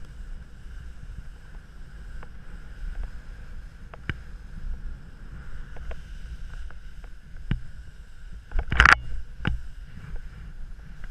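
Skis hissing steadily over snow during a fast descent, with wind rumbling on the camera microphone. Scattered sharp clicks run throughout, and a cluster of loud knocks or scrapes comes near the end.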